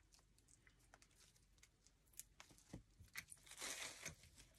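Faint rustling and light clicks of greenery stems and leaves being handled, with a slightly louder rustle about three and a half seconds in.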